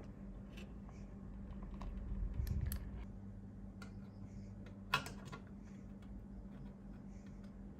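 Scattered light clicks and taps, with a low rumble swelling about two seconds in and one sharp click about five seconds in, over a steady low hum.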